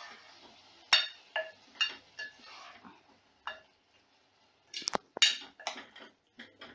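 A spatula stirring minced mutton in a non-stick pot, knocking and scraping against the pot in irregular sharp clicks, the loudest cluster about five seconds in.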